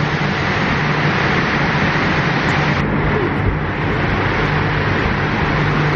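Loud, steady rush of a cold chamber's ceiling-mounted fans and air-conditioning units blowing, with a low hum under it. The hiss turns a little duller about three seconds in.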